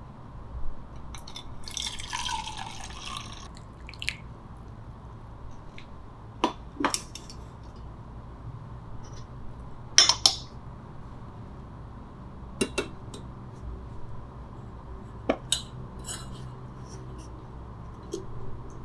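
A short pour of water splashing into metal cookware, then light clinks and knocks of metal camp cookware set down on a wooden tabletop. The loudest is a sharp clink about ten seconds in, as the gooseneck kettle's lid is put on. A steady low hum runs underneath.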